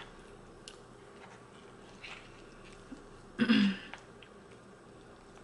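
Quiet close-up eating sounds: a person chewing pasta, with faint mouth clicks and ticks. About three and a half seconds in comes one short, louder sound from the mouth or throat.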